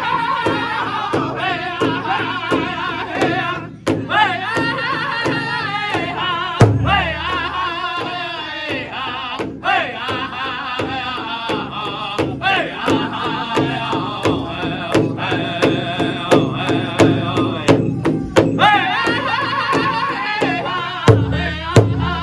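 A powwow drum group: singers strike a large shared drum in a steady beat, about two to three strokes a second, while singing a high, wavering song. The sound cuts out briefly a few times.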